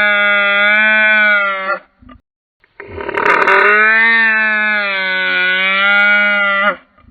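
Home-made dinosaur sound effect: a long, slightly wavering, pitched creature call that cuts off about two seconds in. After a second of dead silence, a second call of about four seconds follows.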